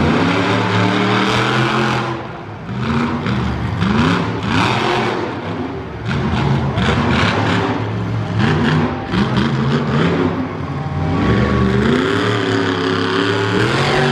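Monster truck engine revving hard, its pitch rising and falling again and again as the truck accelerates and backs off over the dirt.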